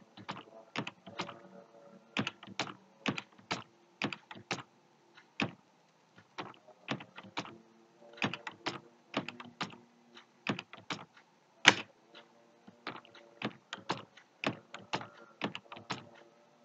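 Computer keyboard keys clicking in short, irregular runs as a plus sign is typed with shift at the end of each line, one sharper click about twelve seconds in.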